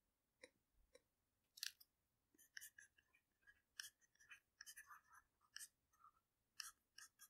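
Faint stylus taps and scratches on a tablet screen while words are handwritten: a few isolated clicks in the first second or so, then a quick irregular run of small ticks and scrapes.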